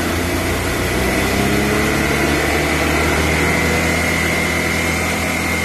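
Can-Am Maverick X3 Turbo RR's turbocharged three-cylinder engine held at raised revs in neutral, climbing slightly, with a steady high whine and the rattle from behind the driver's head. The rattle is thought to come from the CVT clutch.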